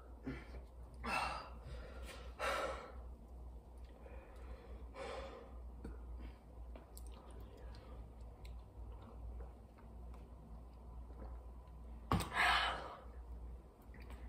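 A person's heavy sighs and breaths out, four strong exhales spaced several seconds apart with the loudest near the end, from a burning mouth after eating a spoonful of crushed red pepper flakes.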